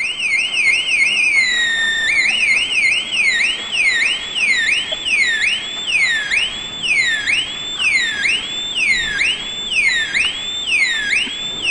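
Electronic tone from a two-555-timer sound-effect circuit, one timer modulating the other's pitch, sweeping up and down like a siren. It starts as a fast warble of about five sweeps a second. About a second and a half in the pitch dips and the sweep slows to a repeating swoop of about one and a half a second, as the potentiometers are turned.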